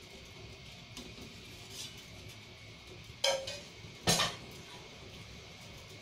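A stainless steel ladle clinks twice against a metal pot, about a second apart, the first strike ringing briefly.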